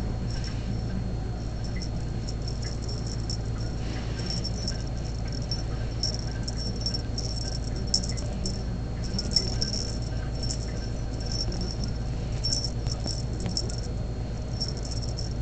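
A small cat toy rattling and jingling in quick, irregular bursts as a kitten bats at it, with a couple of louder knocks partway through, over a steady low hum.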